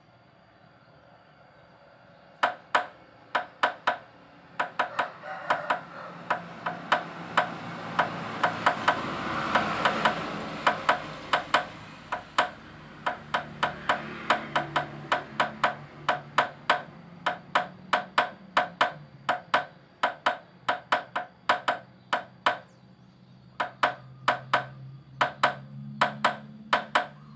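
Hammer striking a steel drift to drive a wheel bearing into a motorcycle cast-wheel hub: sharp metallic knocks, often in quick pairs, beginning a couple of seconds in and repeating steadily. The hub's bearing seat had worn loose and was reworked without machining, so the bearing is being knocked home into a tight fit.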